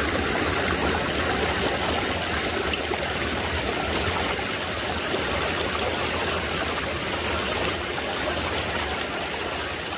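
A mountain stream running steadily over rocks: a constant rushing of water.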